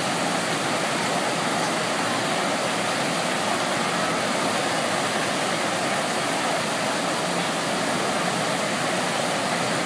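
Steady rush of a sheet of water pumped at speed up the slope of a surf-simulator wave ride, an even continuous noise like a waterfall.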